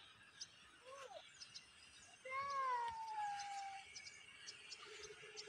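Two faint animal calls: a short one about a second in, then a longer one that falls in pitch over about a second and a half.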